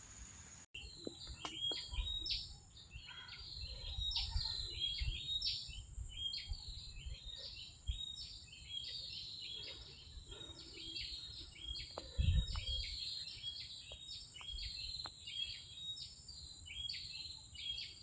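Bird calling in a fast, even series of high chirps, about one and a half a second, over a steady high-pitched insect whine. Low thumps and rumble sound beneath them.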